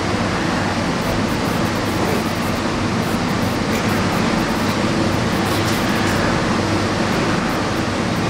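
Steady, loud rushing noise with a low droning hum underneath.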